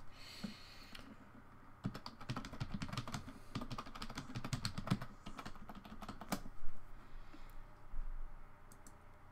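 Typing on a computer keyboard: a quick run of keystrokes starting about two seconds in and lasting a few seconds, ending with one louder key strike, then a few scattered clicks.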